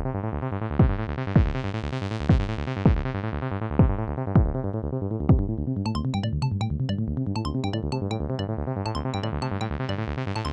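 Electronic synthesizer music: a repeating keyboard pattern whose tone brightens and dulls again, with kick drum hits through the first half and high plinking notes in the second half.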